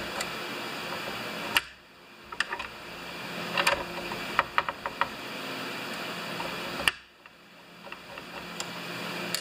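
Small metal clicks and taps from a screwdriver and parts being handled in a chainsaw's plastic housing during reassembly. There is a sharp click about a second and a half in and another near seven seconds, with lighter taps between, over a steady background hum.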